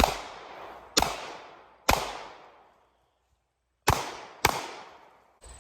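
Five Glock pistol shots fired in response to a "threat" command: three about a second apart, then a gap of about two seconds and two more in quick succession. Each shot is followed by a fading echo.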